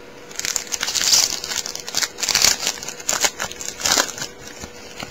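Crinkling and tearing of a trading card pack's wrapper as it is pulled open, in a run of crackly rustles and snaps lasting about four seconds.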